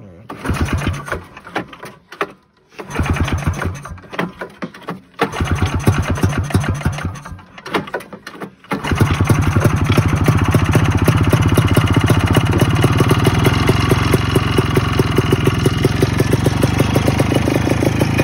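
1987 Ski-Doo Citation 250 snowmobile's two-stroke engine being cranked in three short sputtering bursts, then catching about nine seconds in and running steadily. It is firing on gasoline poured directly into the air box.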